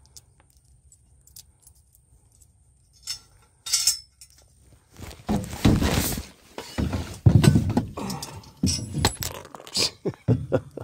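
Metal clinking and clattering as a slotted steel Unistrut channel and its screws and washers are handled and pressed against the truck's underside. A couple of isolated clicks come first, then a busier run of knocks and rattles from about halfway.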